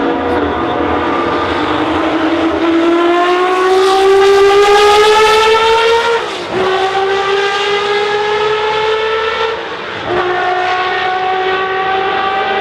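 Porsche 962 Group C race car's turbocharged flat-six engine accelerating hard at full throttle, its pitch climbing steadily, with two upshifts where the pitch drops sharply, about halfway through and again near the end.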